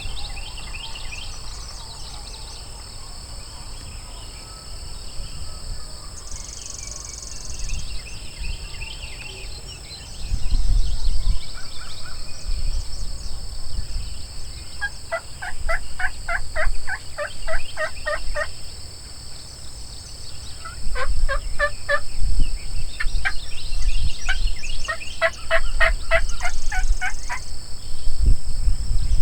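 Wild turkey gobbling: three bouts of rapid rattling gobbles in the second half. A loud low rumble on the microphone starts about a third of the way in and runs under the gobbles.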